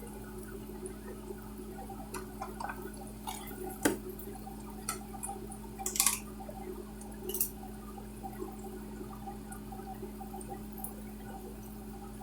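Kitchen handling sounds: light clicks and taps of a utensil against plastic meal-prep containers, with one sharper knock about four seconds in and a few more a little later, over a steady low hum.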